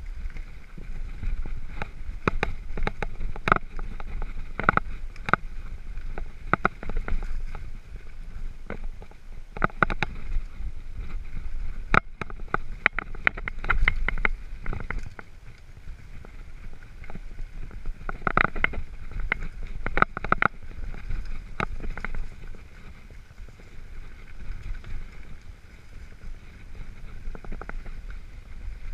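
Mountain bike rolling over a rough dirt and gravel trail: irregular rattles and knocks from the bike over bumps above a steady low rumble of the tyres. The rattling comes in clusters and eases in calmer stretches in the second half.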